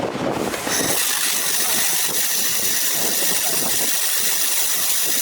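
Laser welder fusing 6 mm carbon steel: a steady, loud hiss that starts about a second in.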